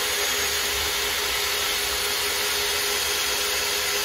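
Cordless drill running steadily under load, boring a 3/8-inch hole through doubled wooden joists with a long bit.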